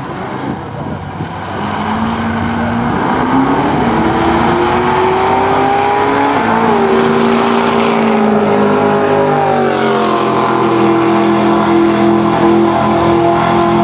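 Drag car with a Duramax turbodiesel engine launching and accelerating hard down the strip. The engine note climbs steadily and steps down at an upshift about halfway through, then again about two-thirds in.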